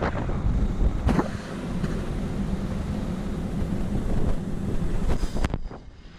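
Wind buffeting the microphone over the wash of the sea along a ship's side; it eases near the end.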